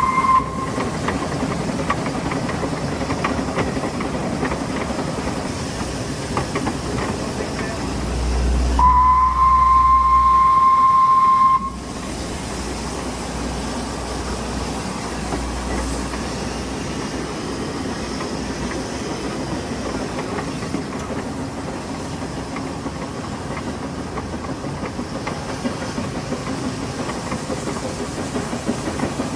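Narrow-gauge steam locomotive Welsh Pony running, heard from its tender: the steady rattle and rumble of the engine and its wheels on the rails. It gives one long, steady whistle blast of about three seconds, about nine seconds in, which sounds for a level crossing. The tail of a shorter whistle is heard right at the start.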